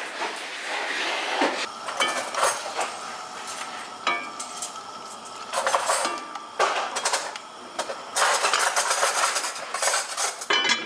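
Kitchen utensils clinking and scraping in an enamelled cast-iron pan as the octopus cooking in it is stirred, with pots and pans clattering. Near the end there are several sharp knocks as the pan's heavy lid is handled.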